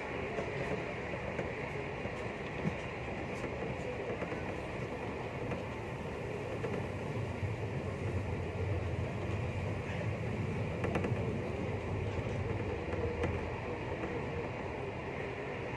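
Passenger train running, heard from inside the carriage: a steady rumble and rail noise that grows heavier in the middle, with a few faint clicks about eleven seconds in.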